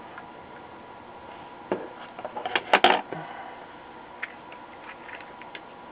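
A cluster of sharp clicks and knocks from about two to three seconds in as a circuit board is handled and laid down on a workbench, followed by a few light ticks. A faint steady tone runs underneath.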